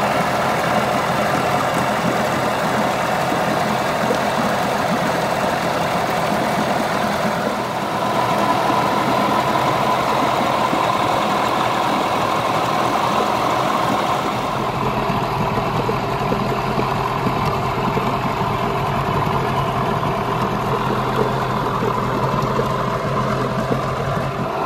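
Yamaha 15 hp two-stroke twin outboard idling steadily with its cowl on, its leg in a test barrel of water. It idles pretty smooth, a sign that the freshly tuned ignition timing and carburettor settings have it running in its sweet spot.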